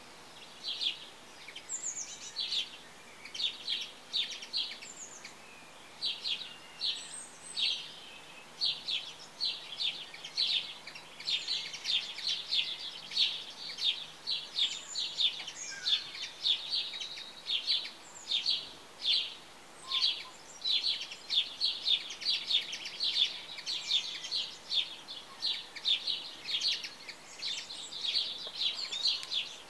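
Small birds chirping: a steady, irregular run of short, high chirps, several a second.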